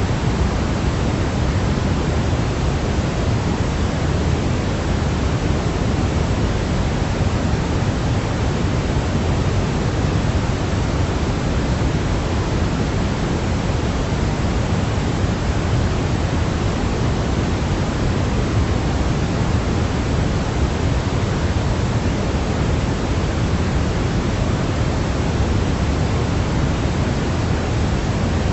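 Steady, unchanging white noise for baby sleep, a constant hiss weighted toward the low end like pink noise.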